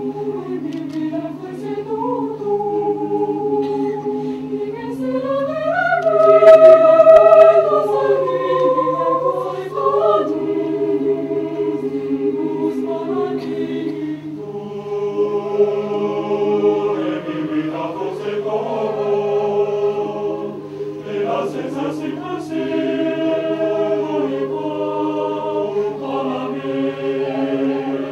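A mixed choir of women's and men's voices singing a cappella in sustained, slowly moving chords, swelling to its loudest about six seconds in and then settling back. A steady low hum runs underneath.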